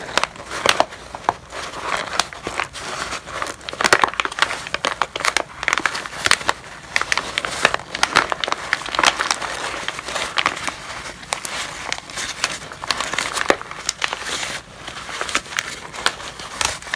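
A sheet of brown paper crumpled and squeezed into a ball by gloved hands: dense, irregular crackling with frequent sharp, louder crinkles throughout.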